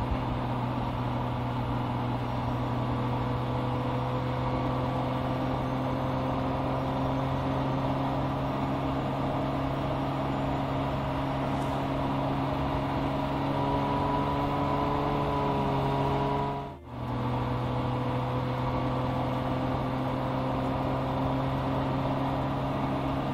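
Porsche 718 Boxster GTS 4.0's 4.0-litre flat-six running at steady cruising revs, an even engine note over road noise, with a brief drop in sound about 17 seconds in.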